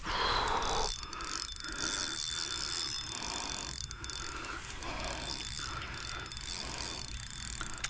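Fishing reel clicking with a steady ratcheting rhythm under the load of a hooked carp.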